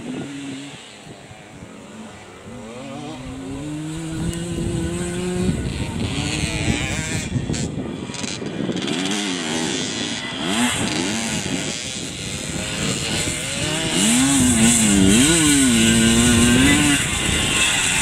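Classic off-road motorcycle engines revving up and down on a dirt course, the pitch rising and falling with the throttle. One bike comes closer and is loudest over the last few seconds.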